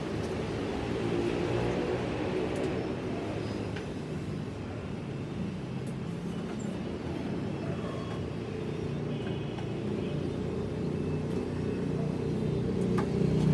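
Steady low mechanical drone of a running machine, growing slightly louder near the end.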